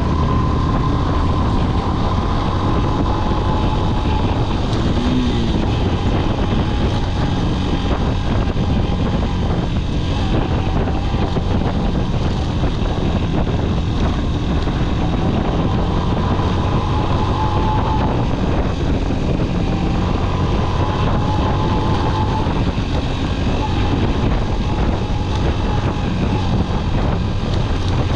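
Motorcycle engine running steadily while riding over a rough gravel track, with wind noise on the microphone.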